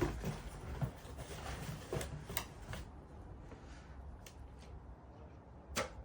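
Rustling of packaging with a few light clicks and knocks as parts are handled and taken out of a box; the rustling fades after about three seconds and a sharper knock comes near the end.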